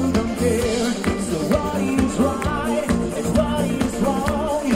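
Live band playing a pop song with a singer over drums, bass and keyboards or guitar at a steady beat.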